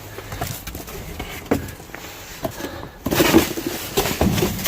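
Rummaging through discarded goods in a dumpster: scattered knocks and clicks of items being handled, with a louder burst of rustling about three seconds in.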